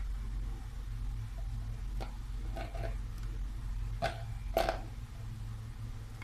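A few short, light taps, four in all and the last the loudest, over a steady low hum.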